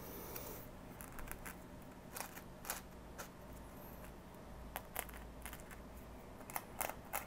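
Faint, irregular light clicks and taps from fingers handling small scenery pieces and scatter on a model railway diorama board, over quiet room tone.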